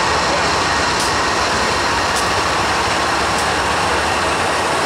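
BNSF freight train's diesel locomotives passing close at speed: a steady, loud din of engines and steel wheels on rail, with faint sharp ticks about once a second.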